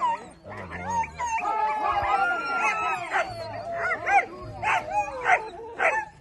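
Several dogs yelping and howling, long wavering calls overlapping one another, then shorter separate barks and yelps, about two a second, over the last couple of seconds.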